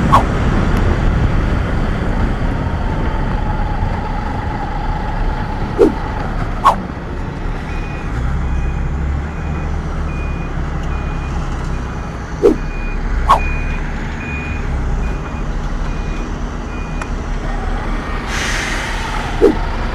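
Heavy construction machine's reversing alarm beeping at one steady pitch, a little over once a second, for about nine seconds through the middle, over the steady noise of a motorcycle ride and a low engine hum. Three pairs of short, sharp chirps stand out as the loudest sounds.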